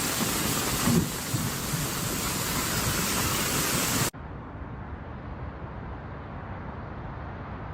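Heavy rain hissing in a storm, with low thumps of wind on the microphone. About four seconds in, it cuts abruptly to a quieter, duller steady rushing noise.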